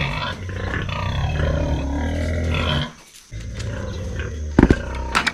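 Sows grunting and squealing, with a short lull partway through and a sharp knock about four and a half seconds in.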